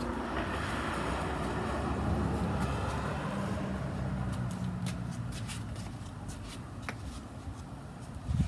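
A car passing on the street, its engine and tyre noise swelling over the first couple of seconds and fading away, followed by light clicking footsteps on concrete and a brief thump near the end.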